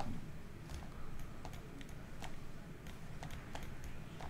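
Pen stylus tapping and clicking on a tablet surface while handwriting: a scatter of faint, irregular ticks.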